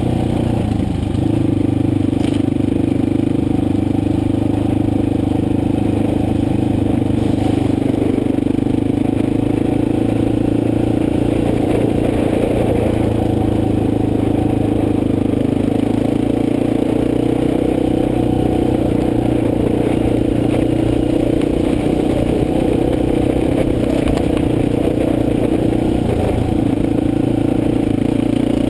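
Motorcycle engine running at a steady pace while riding a forest road, with rattling and scraping from the ride. The engine note dips briefly near the end.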